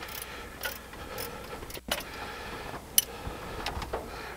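Hand ratchet clicking and metal tools clinking against the engine as a long alternator mounting bolt is worked out, the bolt binding as it turns. Irregular sharp metallic clicks, the sharpest one about three seconds in.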